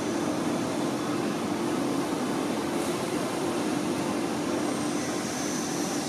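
Steady mechanical drone: an even rushing noise with a constant low hum, unchanged throughout.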